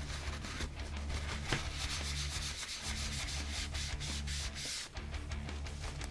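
Continuous scratchy rubbing or scraping, made of many rapid rough strokes, easing off about five seconds in.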